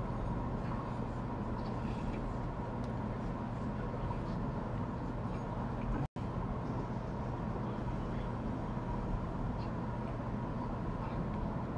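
Steady low hum and hiss of background room noise, with a faint steady tone above it; the sound cuts out completely for a moment about six seconds in.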